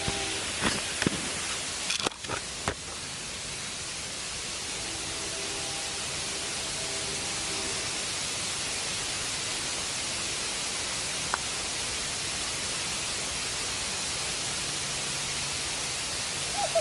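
Steady rush of falling water, an even hiss with no pitch, with a few faint knocks in the first few seconds.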